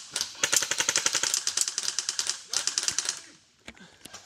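Airsoft M4-style rifle firing on full auto: a fast, even rattle of shots for about two seconds, then a short second burst, then it falls quiet with a few single clicks.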